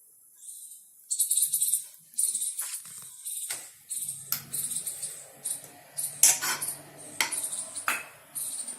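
Ghee heating in a metal pan on the stove: irregular bursts of crackling sizzle with metal clinks, and a low steady hum from about four seconds in.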